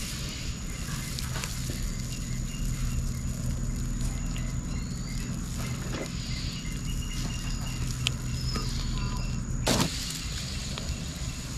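Steady background with a low hum, a thin high steady tone above it and scattered faint chirps. A single sharp click comes near the end.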